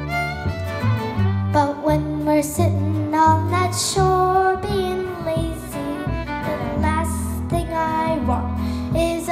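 Live acoustic folk band playing: fiddle, acoustic guitar and upright bass, with a young girl singing the melody.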